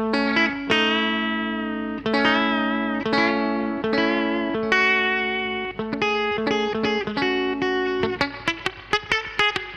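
Electric guitar played through a DemonFx CK Compressor pedal: long sustained notes with vibrato, giving way near the end to quick, short picked notes.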